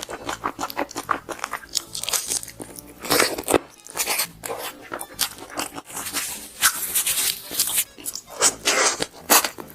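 Close-up crunching and chewing of crispy fried chicken coating, bite after bite in irregular crunches.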